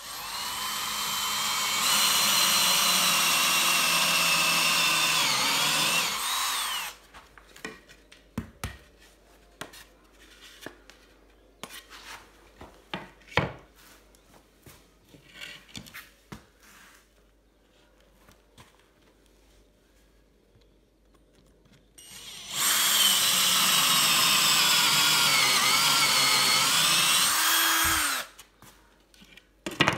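Cordless drill boring holes through a wooden batten: two runs of about five seconds each, the first building up speed over its first couple of seconds, and each winding down as the trigger is let go. A few light knocks and taps fall between the two runs.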